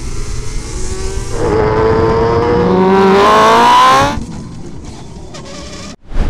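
Superbike engines at racing speed, heard from onboard: the revs climb with a rising pitch, loudest from about a second and a half in, then cut off abruptly around four seconds to a quieter engine drone. A short whoosh near the end.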